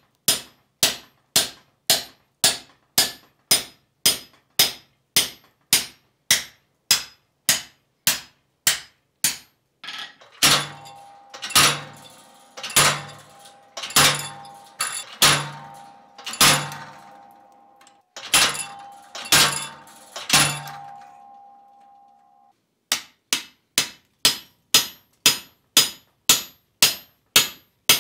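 Hand hammer striking hot steel on an anvil in quick, even blows, about two a second. From about ten seconds in come slower, heavier blows about one a second, driving a handled drift through a punched hole in the bar set over a bolster block; each strike carries a low thump and a steady ringing tone. The quick hammer blows resume near the end.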